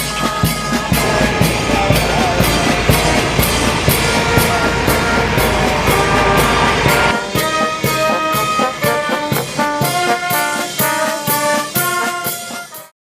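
Brass-led music with a steady beat, trombone and trumpet notes over drums, with a low rumble underneath for the first half. It cuts off abruptly near the end.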